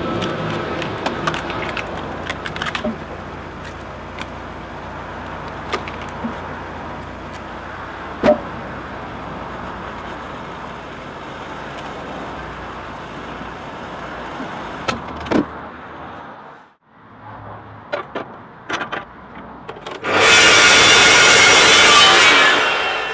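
A car's driven wheel spinning a screw cone log splitter steadily while a log is forced onto the cone, the wood cracking sharply as it splits apart. Near the end, a loud burst of a metal chop saw running for about three seconds.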